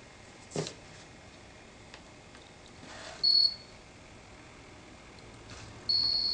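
Two high-pitched electronic beeps on one steady pitch, a short one about three seconds in and a longer one near the end, with a light click about half a second in.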